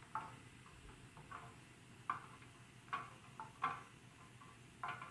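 Floating plastic marble-run balls knocking against one another and the side of a clear tub of water: about seven faint, sharp clicks at uneven intervals.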